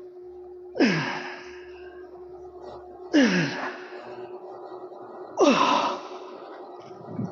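A man's strained exhales with a grunt of effort, three times about two seconds apart, each falling in pitch, as during weightlifting reps. A steady faint hum runs underneath.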